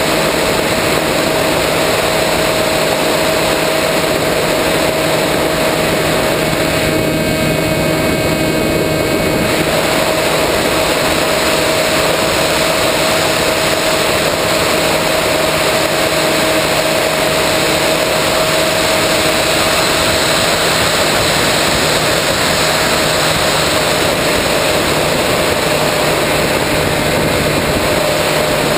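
Battery-powered RC plane's electric motor and propeller, recorded from the onboard camera in flight: a steady whine over a loud, even rush of air.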